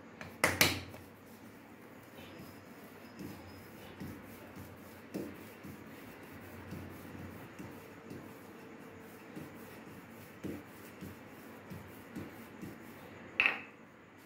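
Wooden rolling pin rolling out layered paratha dough on a stone counter: soft repeated rubbing and light thumps as the pin passes over the dough, with a sharp knock of wood on the counter about half a second in and another near the end.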